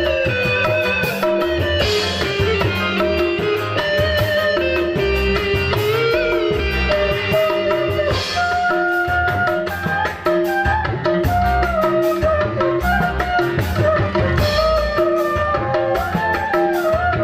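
Live dangdut band playing an instrumental passage with no singing: electric guitar and keyboard melody lines over a steady drum and hand-drum beat, with a bamboo flute line near the end.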